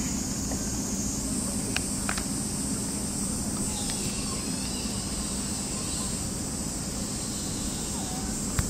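Street ambience with car traffic passing slowly: a steady low hum under a constant high hiss, with a few faint clicks and one sharper click near the end.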